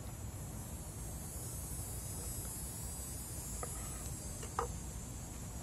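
Quiet outdoor background of a steady low rumble and a faint high hiss, with two faint clicks a second apart just past the middle as a knife cuts through small grape tomatoes.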